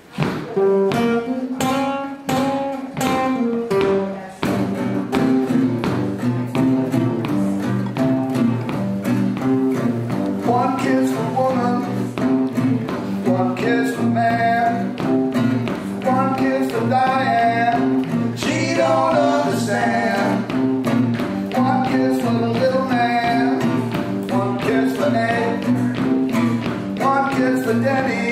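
Two acoustic guitars, a nylon-string classical guitar and a steel-string cutaway, playing a song together: a few separate strummed chords at first, then steady rhythmic strumming from about four seconds in. A man's singing voice joins over the guitars later on.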